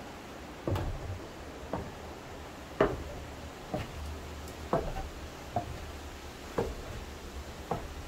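Footsteps climbing steep wooden stairs: a hollow knock about once a second, eight steps in all, the third the loudest.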